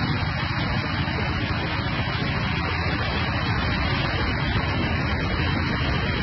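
Heavy rain: a steady, even hiss.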